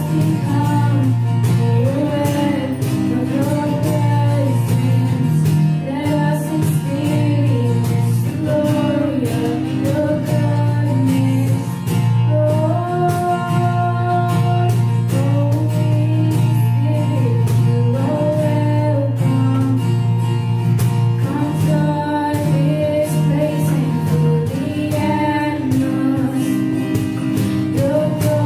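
Live worship song from a small band: voices singing over guitar, with a low note held underneath through most of it.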